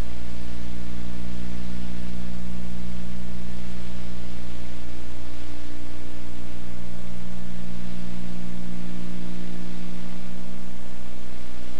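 Loud, unchanging electrical hum and hiss on an old home-video soundtrack: a buzz of many fixed tones over a steady noise floor. No sound of the scene itself comes through.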